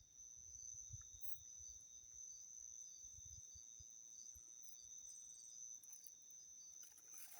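Faint chorus of crickets trilling steadily in two high pitches, with a softer pulsing insect call among them. A faint low rumble runs under it for the first few seconds.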